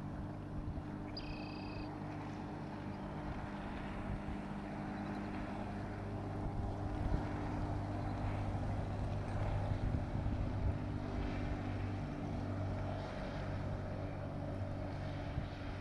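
Speedboat's engine running steadily at speed as the boat passes across the water, its hum swelling a little in the middle as it comes nearer. A brief high-pitched chirp sounds about a second in.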